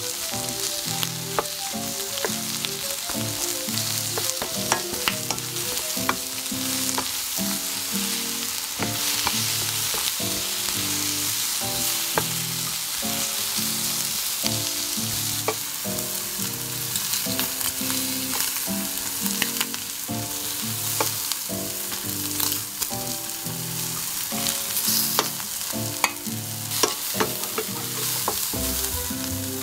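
Prawns and diced onion sizzling steadily in a hot oiled pan, with a wooden spatula scraping and tapping against the pan as they are stirred. A soft lo-fi music track runs underneath.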